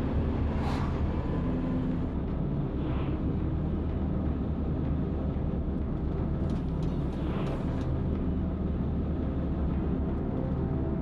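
Army truck engine running steadily, a low drone, with a few brief rushes of noise over it.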